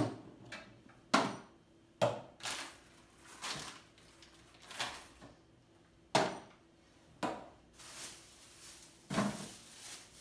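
Irregular knocks and clatters of small objects being handled and set down on a wooden tabletop, about one every second or so.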